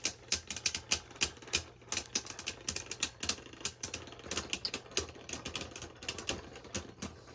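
Two Beyblade Burst spinning tops, Hyperion Burn and Helios Volcano, clashing again and again in a plastic stadium: rapid, irregular sharp clicks, several a second, growing fainter near the end as the tops lose spin.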